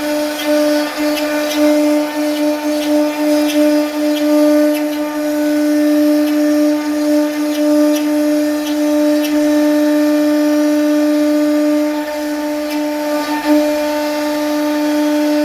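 CNC router spindle running at a steady high-pitched whine while carving wood, with faint irregular ticks from the bit cutting.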